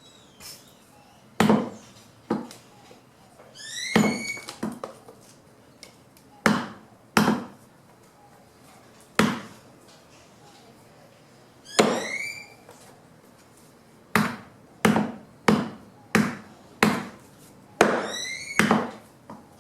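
Fallen branches being chopped into wood chips by hand: a string of sharp, irregularly spaced strikes on wood, and three times a short rising squeak that comes with a strike.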